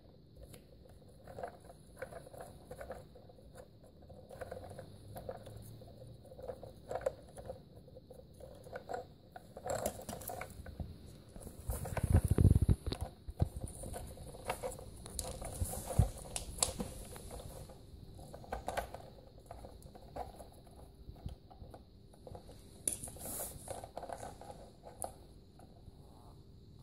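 Small plastic clicks, scrapes and rattles of a toy screwdriver turning a plastic screw into a wheel of a take-apart toy truck. A louder thump comes about twelve seconds in.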